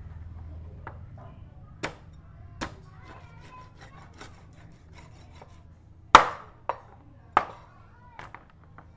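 Cleaver chopping beef ribs on a wooden board: about six irregular, separate strokes, the hardest a little past six seconds in, over a low steady hum.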